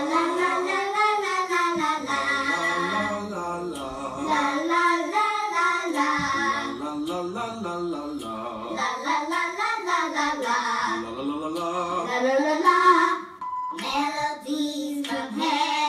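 A female singing voice over music, holding long notes that slide up and down in pitch. It dips briefly about fourteen seconds in.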